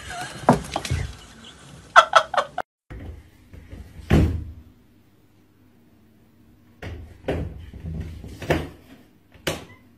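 Cats scuffling, with a quick run of four short cries about two seconds in. Then a cat jumps at a door's lever handle and hangs from it, and the door gives a handful of separate knocks and rattles.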